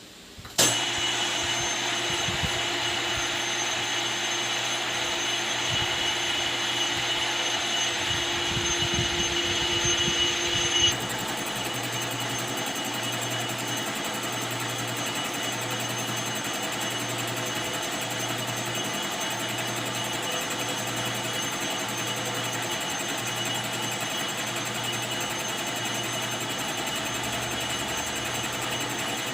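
Metal lathe motor switching on and running steadily with a fixed whine. Near eleven seconds the sound drops slightly and changes, continuing as a steady hum with a low pulse repeating a little faster than once a second.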